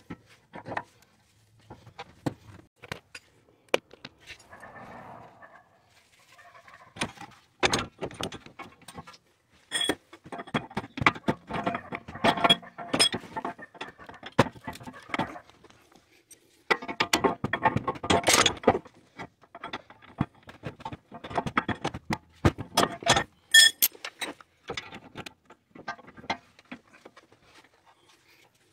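Metallic clinking and clicking of hand tools and bolt hardware at a car's front strut lower mount, in irregular runs of quick clicks with short pauses between.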